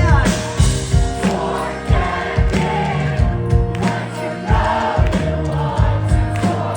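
Live pop-punk band playing loud amplified music with sung vocals over a steady drum beat.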